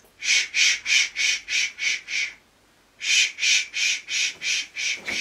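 A man shushing rhythmically like a steam train: a run of short "shh" hisses at about three a second, broken by a brief pause about halfway through.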